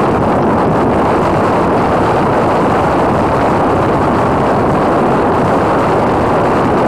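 Steady wind rush and road noise on the camera microphone of a motorcycle riding at highway speed, with no clear engine tone standing out.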